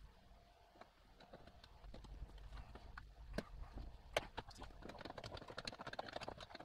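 Irregular light clicks and knocks of hands working on a plastic RV shower control panel and its water-line fittings, growing busier in the second half.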